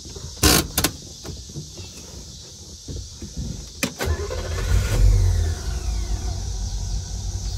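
A few sharp clicks, then about four seconds in the 1964 Chevy Impala's V8, which the owner believes is a 327, starts, rises briefly just after catching and settles into a steady idle. It runs quietly through a mild stock-sounding exhaust, a low purr.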